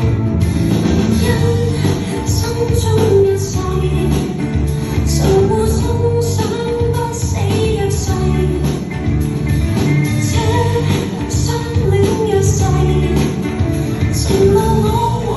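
Pop song with a female singing voice over a steady beat and bass.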